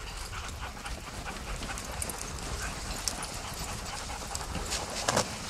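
Sled dog team running close by on packed snow, the dogs panting, growing louder as the team nears, with a few sharp clicks just before the end.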